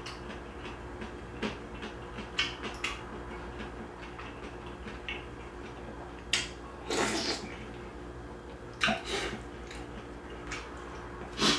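Someone eating soup with rice: a metal spoon clicking now and then against a ceramic bowl, and a brief slurp of hot soup about seven seconds in, with a few more mouth sounds near the end, over a steady low hum.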